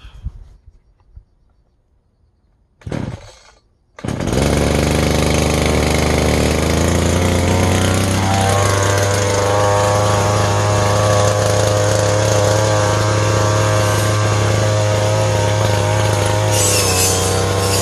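Two-stroke backpack brush cutter being pull-started: a short rising burst from a pull about three seconds in, then the engine catches about a second later and runs loud and steady. Its note shifts a few seconds after it catches as cutting begins. The engine is running on a fuel mix the owner thinks has too much two-stroke oil.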